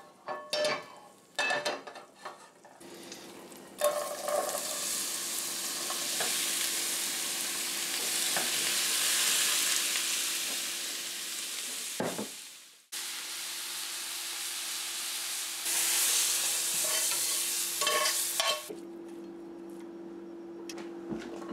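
Shredded cabbage, onion and mushrooms sizzling as they fry in hot oil in a stainless steel pot while being stirred, after a few knocks in the first seconds. The sizzle goes fainter near the end, over a steady low hum.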